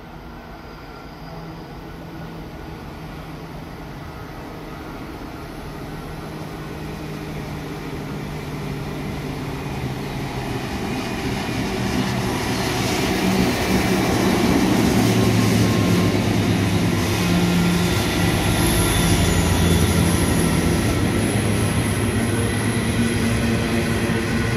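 Coal train led by several Pacific National 90 class diesel-electric locomotives approaching and passing close, the engine drone growing steadily louder and loudest from about halfway through as the locomotives go by. Near the end the steel wheels of the coal hopper wagons rumble and clatter past.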